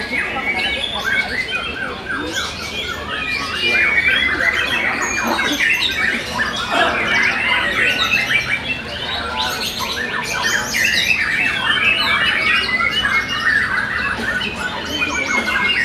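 Young white-rumped shamas (murai batu) singing. Several birds' songs overlap in a dense, unbroken stream of quick varied whistles and chattering phrases.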